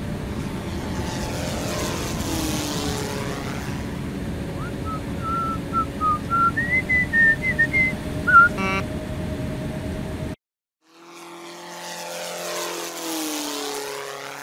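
Jet airliner sound effect: a steady engine drone with a passing sweep, and a short run of whistled notes over it partway through. The drone cuts off, and after a brief gap a second rushing sound swells and fades.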